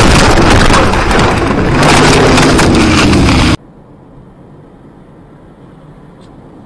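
Head-on collision heard from inside the vehicle: a sudden, very loud crash with crackling and crunching as the windshield shatters, lasting about three and a half seconds. It then cuts off sharply to the faint, steady road noise of a car driving along.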